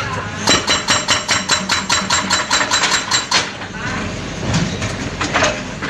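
Rapid metallic clanking from an excavator, about eight ringing strikes a second for roughly three seconds, then a few scattered knocks, with the engine running underneath.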